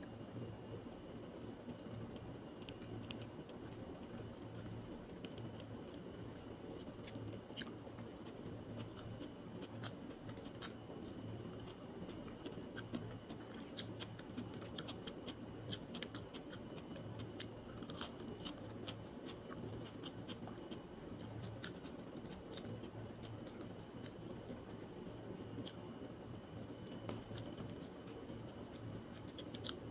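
Close-miked eating sounds: a person chewing roast chicken, with scattered sharp clicks and crackles from the mouth and from fingers handling the food, over a low steady hum. The clicks come thickest around the middle.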